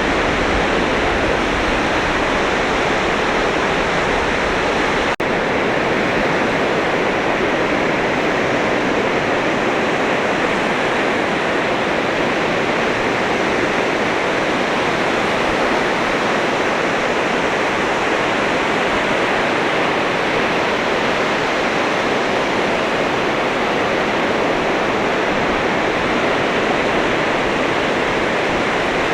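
Sea surf washing onto a beach, a steady continuous rush of waves. A brief click and drop-out about five seconds in.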